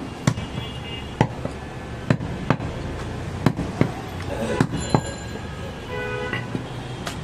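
A large butcher's knife chopping goat meat against a wooden log chopping block: about nine sharp chops, unevenly spaced.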